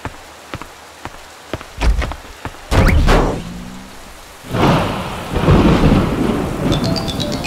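Cartoon thunderstorm sound effects: rain with sharp drips about twice a second, then two loud claps of thunder that rumble on. Light chiming music comes in near the end.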